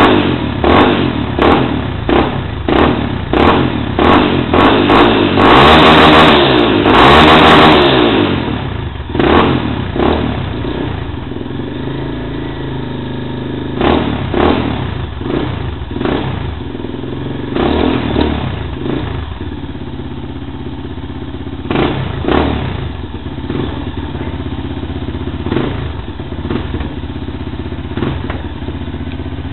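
Yamaha Fazer 250's single-cylinder engine through a Coyote TRS aftermarket exhaust, revved in quick repeated throttle blips, then held high for about two seconds before dropping back. It then idles, with a single blip of the throttle every few seconds.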